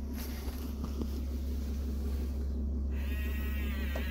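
Steady low hum of the Airstream's idling engine, running to charge the house batteries. About three seconds in, a short creaking squeak lasting about a second as the red rotary battery disconnect switch is turned by hand.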